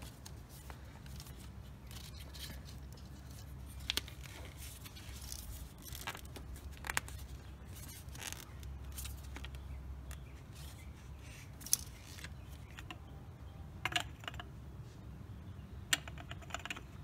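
Scattered sharp clicks and light metallic scrapes of hand tools as a part under a Chevrolet Camaro is worked loose for an oil change, several clicking in quick clusters near the end, over a low steady hum.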